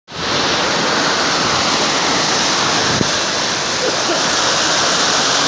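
Steady, loud rush of fast-flowing floodwater, with a single sharp click about three seconds in.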